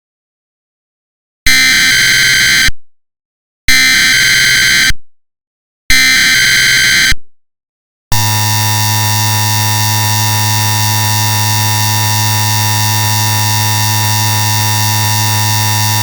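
Emergency Alert System SAME header: three data bursts of about a second each, then a steady attention tone held for about eight seconds that cuts off sharply.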